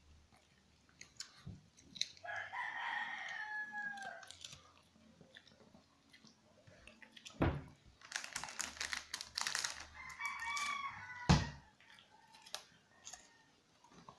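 Shih Tzu crunching crackers, with a quick run of crisp crunches about eight seconds in and sharp knocks just before it and about eleven seconds in. Twice a long pitched animal call that falls at its end sounds over it, a couple of seconds in and again near ten seconds.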